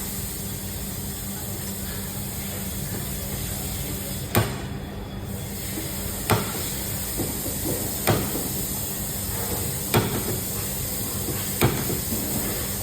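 Hammer blows on a car bonnet's sheet metal during panel repair: five single strikes spaced about two seconds apart, over a steady hiss and hum.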